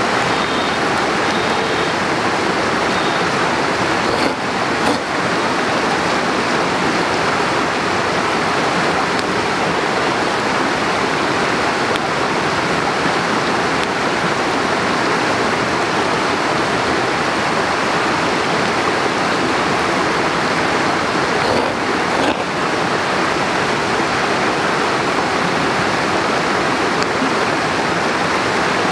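Running water of a stream rushing steadily, loud and unbroken.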